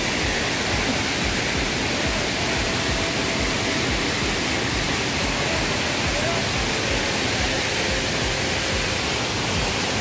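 Steady rushing of a waterfall, an even hiss of falling water.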